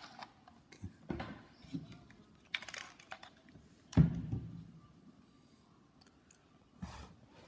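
A few light clicks and taps of things being handled, with one louder knock about four seconds in.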